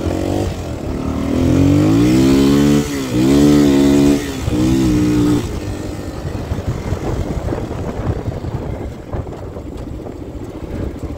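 Honda XR250 four-stroke single-cylinder dirt bike engine accelerating through the gears, its pitch climbing three times in a row. About five seconds in, the throttle closes and the engine drops to a quieter, rough note as the bike slows.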